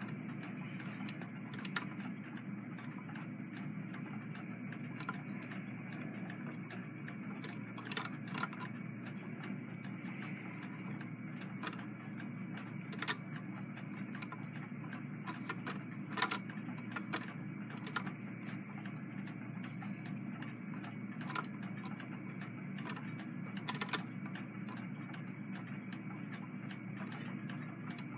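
Singer 66 lock-stitch sewing machine stitching slowly through thick fabric: a steady low hum with a rapid run of light mechanical clicks and a louder click every few seconds.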